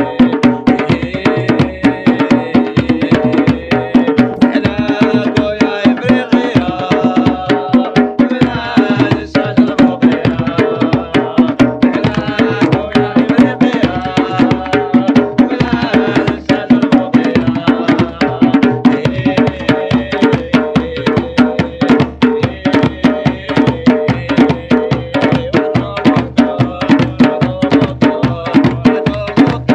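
Several djembe hand drums played together in a fast, steady rhythm.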